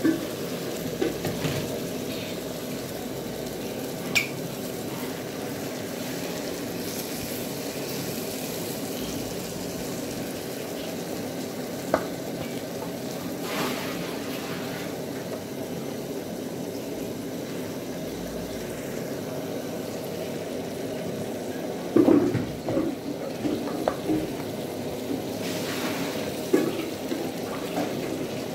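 Kienyeji chicken pieces cooking in their broth in a pan, sizzling and bubbling steadily. A few sharp knocks and clinks against the pan come through, several of them together about three quarters of the way through.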